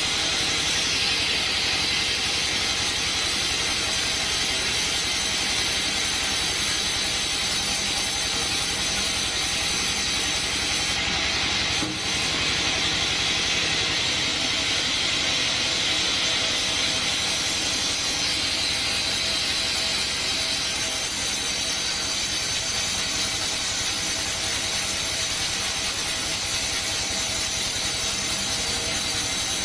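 Band sawmill running steadily while sawing coconut wood, a loud constant machine noise with a hissing edge, briefly dipping about twelve seconds in.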